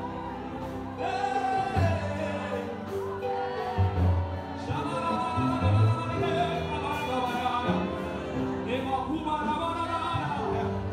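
Gospel singing with band accompaniment: voices hold long sung notes over low bass notes.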